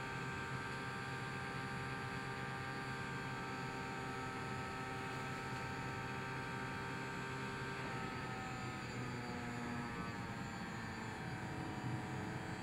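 Small electric fan of a Mind Flex toy running with a steady whirring hum as it blows air up to hold the foam ball aloft. About eight seconds in its pitch slides down as the fan slows, the headset's reading of brain activity setting the fan speed.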